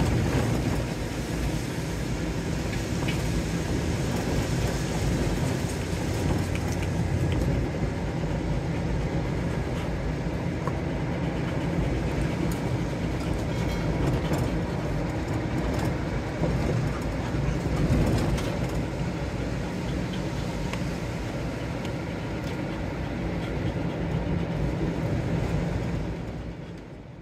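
Ford Raptor pickup driving: a steady low rumble of tyres and engine with scattered rattles, fading out at the very end.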